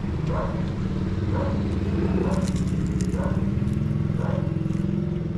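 A motorcycle engine running steadily, under the chewing and faint crunching of a crisp fried banana roll (turon) eaten close to the microphone.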